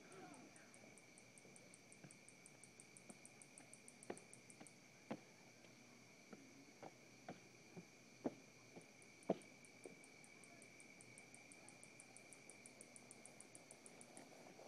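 Faint night chorus of crickets: a steady high trilling, with a rapid series of very high pulsed chirps for the first few seconds and again through the second half. A few sharp clicks are scattered through the middle, the loudest just past the middle.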